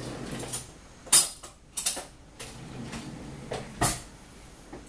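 Several separate knocks and clinks of a glass and utensils being handled on a kitchen counter, the loudest just after a second in and another near four seconds.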